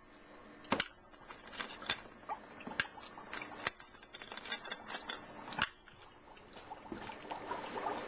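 Dry ice pellets handled with a gloved hand and dropped into a glass jar of water: a handful of sharp clicks and clinks, then bubbling and fizzing building up near the end as the dry ice sublimates in the water.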